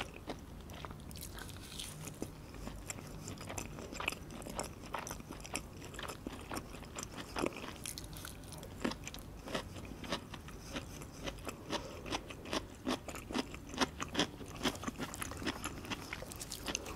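A person chewing battered fried fish close to the microphone: a run of many small, irregular crisp crunches from the fried coating.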